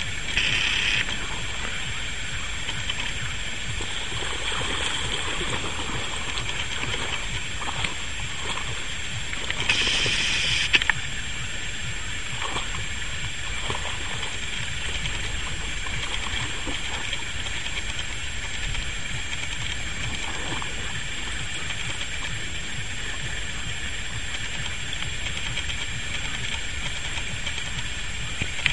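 Two large dogs wading in shallow lake water, with gentle sloshing and a louder splash about ten seconds in, over a steady high-pitched background chirr.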